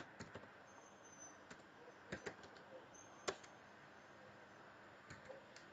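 Faint, irregular computer keyboard and mouse clicks, about a dozen scattered clicks, over a near-silent background.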